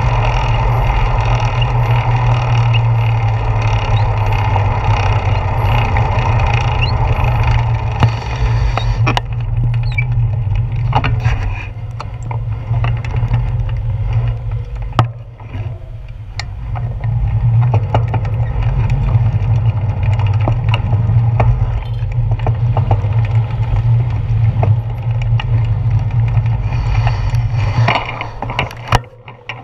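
Wind and road noise on a handlebar-mounted camera of a moving bicycle: a heavy steady rumble with tyre hiss and scattered clicks and rattles from bumps in the road. It quietens for a few seconds about halfway through and fades near the end as the bike slows.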